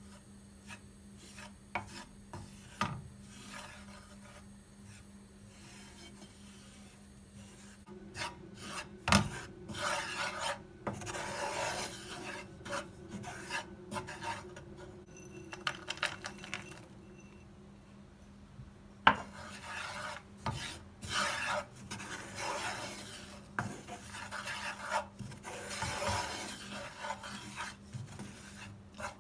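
Irregular rasping, scraping strokes of a kitchen utensil during food preparation, starting about a quarter of the way in, with a few sharp knocks among them. A low steady hum sits underneath.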